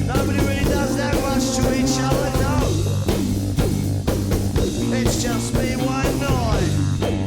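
Rock band playing a song live, with a drum kit beating steadily under a repeating bass line and bending pitched lines above.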